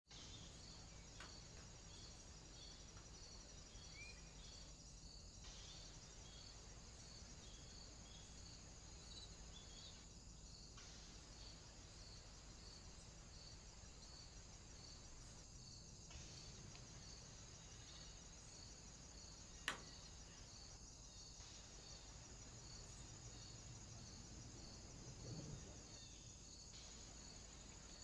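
Faint outdoor ambience through a trail camera's microphone: insects chirping steadily in a high, even pulse about two to three times a second over a low hiss. The sound drops out briefly about every five seconds, and there is one sharp click about two-thirds of the way through.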